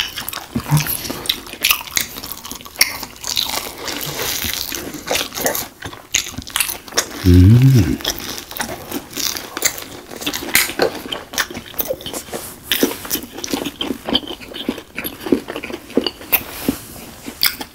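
Close-up chewing and crunching of crispy breaded Korean hot dogs by two people: many quick, irregular crunches and wet mouth sounds. A short hum of voice about seven seconds in.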